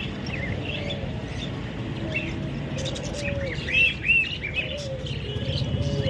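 Caged budgerigars chirping in short arched calls, a few louder ones about four seconds in, over a repeated low cooing from pigeons.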